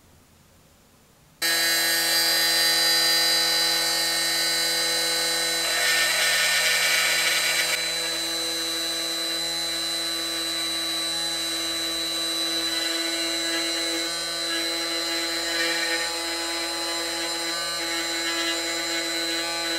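High-speed rotary tool with a small grinding point running and grinding a slot into a 1045 steel eccentric shaft: a steady high-pitched whine that starts suddenly about a second and a half in, with a harsher grinding hiss a few seconds later.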